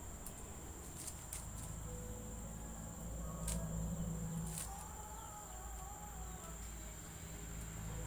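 Faint outdoor ambience: a steady high-pitched insect drone, a few sharp clicks, and faint wavering bird notes near the middle and later part, over a low rumble.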